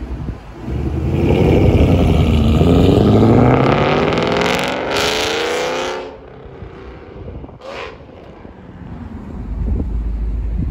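Shelby GT500 Mustang's V8 accelerating hard away, its loud engine note climbing in pitch for several seconds before dropping off abruptly about six seconds in. Near the end a second V8 rumbles low as an orange Shelby GT350 rolls up.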